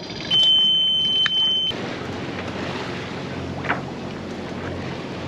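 Music with a steady high tone stops abruptly after about a second and a half, giving way to a steady rush of wind and water around a sailboat under way in a rough swell, with a brief high sound about three and a half seconds in.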